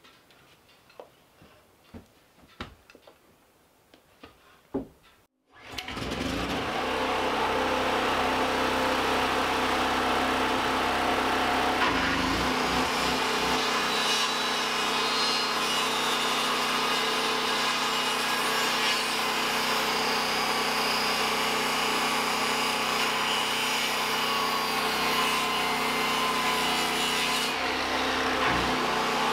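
A few faint sharp taps, then a power saw cutting wood starts abruptly about five seconds in and runs steadily and loudly.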